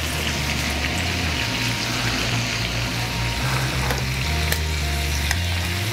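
Butter and lobster sizzling in a hot skillet just lifted off the burner, a steady hiss, over background music with a slowly changing bass line.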